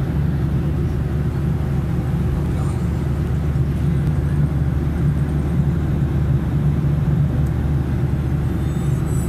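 Airliner cabin noise in cruise flight: a steady low rumble of engines and rushing air.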